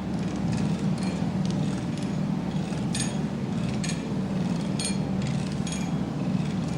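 Irregular sharp metallic clinks, about seven of them a half-second to a second apart, over a steady low mechanical hum.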